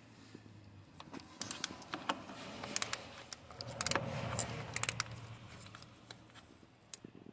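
Small ratchet with a 10 mm socket clicking in short, irregular runs as it backs out the bolt holding the camshaft position sensor.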